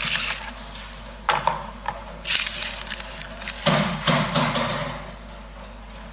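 A run of irregular knocks, clatters and rustles, several in quick succession, dying down about five seconds in.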